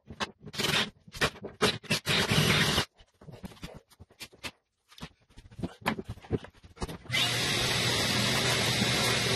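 Cordless drill with a wood auger bit boring through the wooden floor in short trigger bursts, followed by a few weaker scattered bursts. About seven seconds in, a shop vacuum starts and runs steadily.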